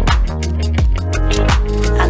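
Background music: a song with a heavy bass line and a steady drum beat.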